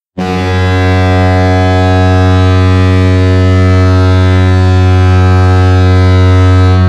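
Hockey arena goal horn sounding one long, deep, steady blast that starts abruptly and holds without a break for nearly seven seconds.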